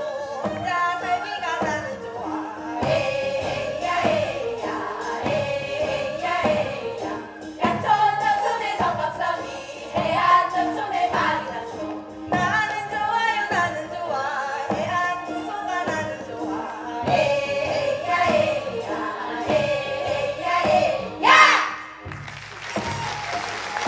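Seodo (northwestern Korean) folk song: a woman soloist sings, a group of singers joins in, and accompanying instruments keep a steady beat. Near the end the voices rise in a sharp cry, and clapping starts.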